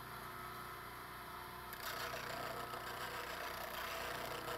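Bench grinder motor running steadily; about two seconds in, a steel chisel is pressed against the spinning grinding wheel and a steady grinding hiss sets in as the chisel's bevel is reground from scratch.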